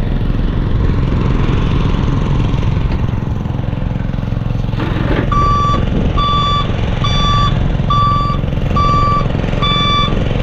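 Dump truck's engine running steadily. About five seconds in, after a short hiss, its reversing alarm starts: a high beep repeating about one and a half times a second as the truck backs up.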